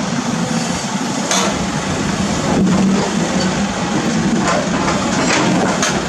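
Cat 320D excavator's diesel engine running under load, with several knocks and scrapes of the steel bucket against broken concrete slabs and rubble.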